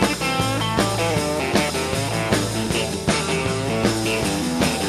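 Country band music with no vocals: guitar lead lines in quick runs over a steady bass line and drum beat.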